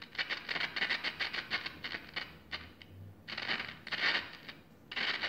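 Scratchy crackling from the 1948 Sentinel 400TV's speaker as its dirty volume control is turned, coming in uneven bursts with short breaks. It is the sign of a worn or dirty volume potentiometer.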